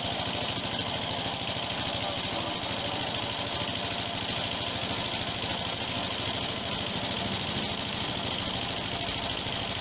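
Single-cylinder diesel engine running steadily, belt-driving a piston air compressor mounted on its air receiver tank; a rapid, even engine beat with no change in speed.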